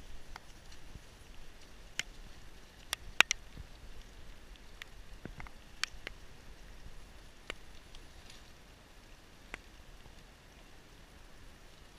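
Scattered sharp knocks and clicks, the loudest about three seconds in, over a faint steady background hiss, as men wading beside a wooden dugout canoe load sacks into it.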